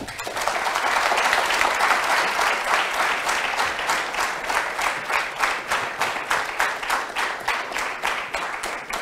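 Audience applauding: the clapping starts at once, is at its fullest in the first couple of seconds, then thins out into separate claps and fades toward the end.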